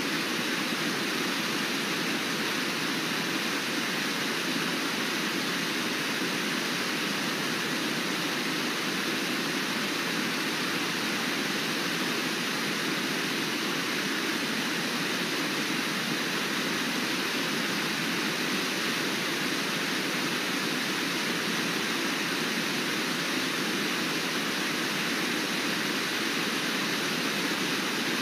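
Steady rush of white-water rapids and a low waterfall, an even roar of water.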